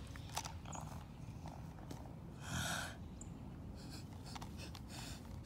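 Faint breathy creature noises made by a person's mouth: short hisses and snorting breaths, with one louder hiss about two and a half seconds in.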